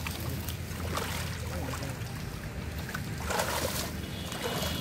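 Shallow muddy water sloshing and splashing as people wade and grope through it by hand, with a louder splash about three and a half seconds in, over a steady low hum.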